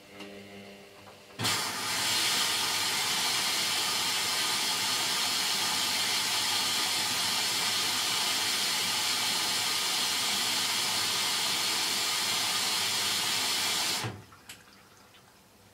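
Hoover DYN9144D3X washing machine filling with water: its inlet valve opens suddenly about a second and a half in, water rushes and hisses in steadily, and the valve shuts off abruptly near the end.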